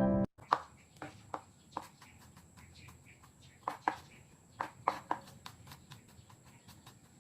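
Sharp, irregular knocks and taps of hands-on kitchen work, about a dozen, many in close pairs, with quiet gaps between them.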